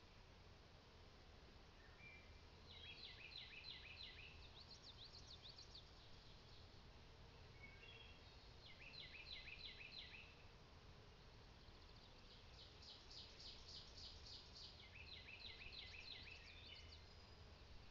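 Faint songbird song: short phrases of quick repeated notes about every six seconds, with a higher, faster trill in between.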